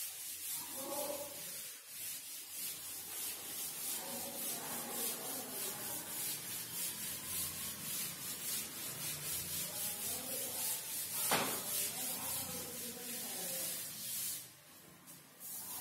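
Chalkboard duster scrubbed back and forth over a chalkboard to erase chalk writing, a rapid run of even rubbing strokes. There is one sharp knock about two-thirds of the way through, and the rubbing stops near the end.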